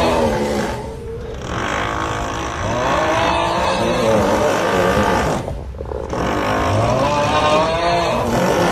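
Loud snoring, coming in long drawn stretches with short breaks about a second in and again near six seconds.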